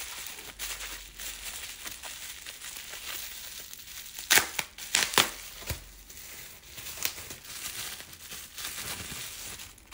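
Packaging crinkling and rustling as wrapped nail polish bottles are unwrapped by hand, with a few sharp clicks about halfway through.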